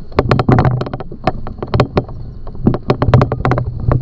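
Irregular rattling and knocking from a boat trailer and the inflatable boat on it as they are towed over paving. A steady low hum runs beneath.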